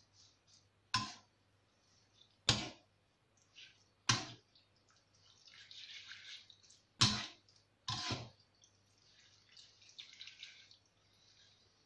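Plastic spatula stirring shredded chicken in a non-stick wok: five sharp knocks of the spatula against the pan at irregular intervals, with soft scraping and rustling of the chicken in the oil between them.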